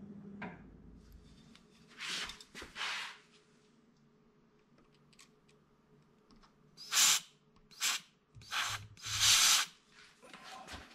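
Compressed-air duster (CRC Duster can) blowing short hissing bursts into the volume-control potentiometers of a Carver PM-900 power amplifier: two bursts, a pause, then four more in quick succession, the last the longest. The air is clearing dust from the dirty pots that make the amplifier's sound cut out.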